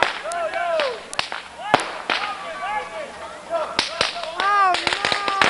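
Firecrackers going off in a string of irregular sharp cracks, thickest near the end, with short rising-and-falling voice calls between them.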